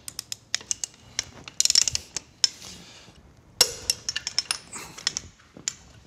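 Large ratcheting torque wrench clicking in short rapid runs with metal clinks as it tightens a hefty nut onto a transfer case's drive-shaft flange.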